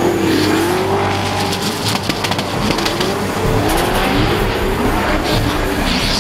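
Turbocharged LSX V8 of a BMW E46 drift car revving up and down repeatedly as the throttle is worked mid-slide, over the noise of its tyres spinning in smoke.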